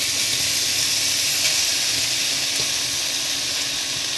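Vegetables and bean sprouts sizzling steadily in a hot frying pan, with a couple of faint taps from the stirring utensil.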